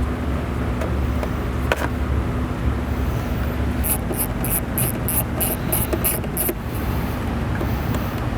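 Hand tools at work on a motorcycle's side panels over a steady low hum: a single sharp click about two seconds in, then a run of about nine quick, light clicks in the middle, like a ratchet turning a fastener.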